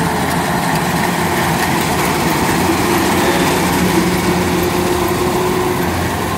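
Kubota DC-93 rice combine harvester running steadily as it harvests rice, its diesel engine and machinery making an even, continuous drone.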